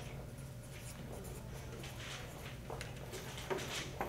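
Marker writing on chart paper, a run of short, soft scratching strokes as words are written out, over a steady low hum.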